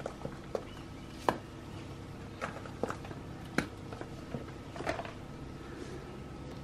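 Light, irregular taps and knocks, about eight of them, from handling a silicone mould and setting solid lotion bars down on parchment paper over a stone counter.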